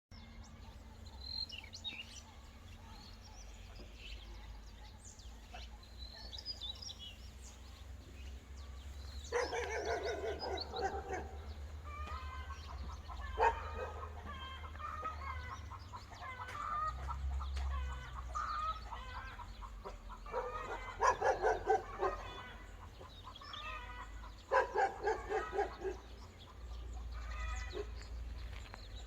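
Animal calls in repeated bursts, some in quick runs of short pulses, with high bird chirps at the start and a low rumble underneath.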